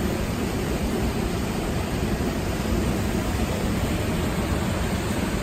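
Steady rushing of river water spilling over a low weir, an even noise heaviest in the low end with no breaks.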